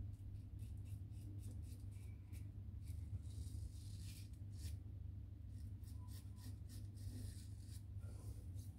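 A razor blade scraping through lathered stubble in short, faint, crackly strokes that come in clusters, over a low steady hum.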